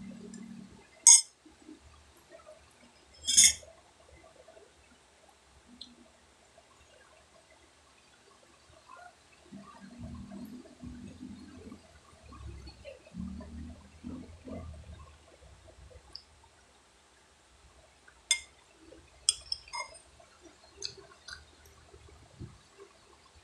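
Metal spoon clinking against a plate or glass: two sharp clinks early on, then a cluster of lighter ones near the end. Between them, low muffled eating and mouth sounds.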